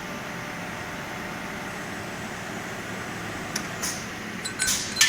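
Automatic friction welding machine running with a steady hum, then from about three and a half seconds a few sharp metallic clicks and clanks, the loudest near the end, as the finished welded piston rods are handled by the machine's clamps and loader.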